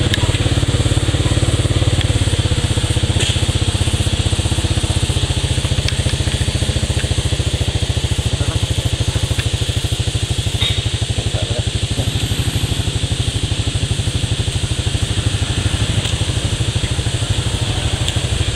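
A motor vehicle's engine idling steadily: a low, fast-pulsing drone that holds the same level throughout.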